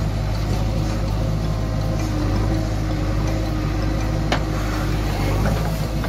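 JCB backhoe loader's diesel engine running steadily while the backhoe digs sand and dumps it into a trolley, with one sharp knock about four seconds in.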